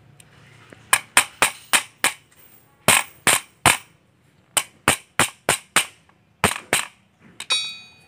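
Small hammer tapping a retaining pin into the filling-coupler housing of a PCP air rifle: a run of sharp metallic taps in quick groups of three to five, about sixteen in all. A brief metallic ring near the end.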